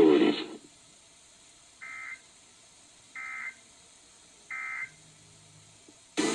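Emergency Alert System end-of-message code: three identical short digital data bursts, about a second apart, marking the close of the alert.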